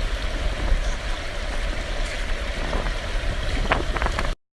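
Flash-flood water rushing: a steady rushing hiss over a heavy low rumble, with a few sharp clicks near the end. The sound cuts off abruptly about four seconds in.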